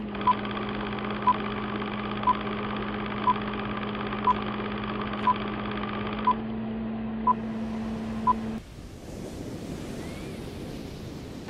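Old film-leader countdown sound effect: a short beep once a second, nine in all, over a steady whirring hum with crackle. The beeps and hum stop about three seconds before the end, leaving a soft hiss.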